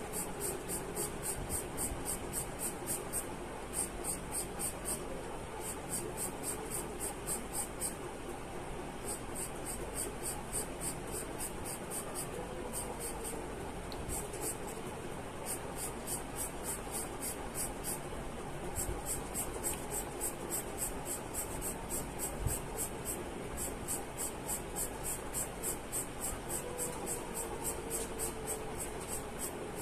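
Charcoal pencil scratching on drawing paper in quick, even hatching strokes, about five a second, in runs broken by short pauses, as a dark area is filled in with dense strokes.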